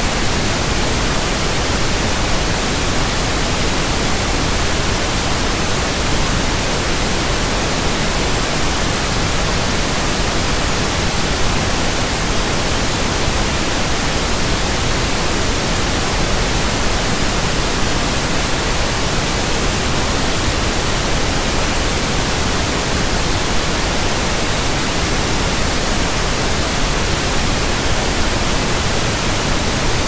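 Pink noise test signal: a steady, even hiss spread across the whole range from deep to high, unchanging throughout.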